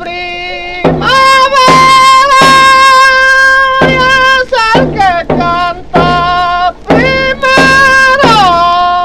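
A voice singing long, high held notes with breaks and slides in pitch, and a slide down near the end, over a hand drum struck at intervals, in the style of a Salta baguala sung with caja.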